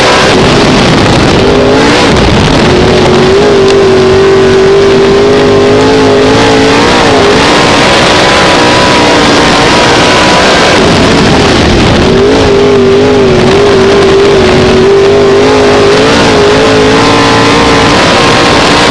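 Dirt modified race car's V8 engine heard from inside the cockpit at racing speed, loud throughout. The revs dip briefly about two seconds in and again about twelve seconds in, then climb and hold high on the straights.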